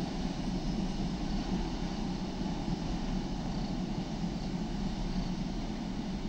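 Container train rolling away along the line: a steady low rumble of wheels on rail.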